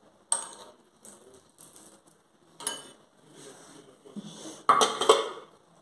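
Serving spoon knocking and scraping against a glass salad bowl and a plate as food is served: a sharp clink about a third of a second in, another near three seconds, and a louder clatter of several knocks about five seconds in.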